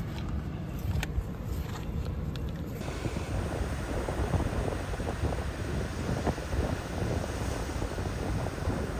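Wind buffeting the microphone over ocean surf. About three seconds in, the sound cuts abruptly from a lower rumble with a few sharp clicks to this fuller rush of wind and waves.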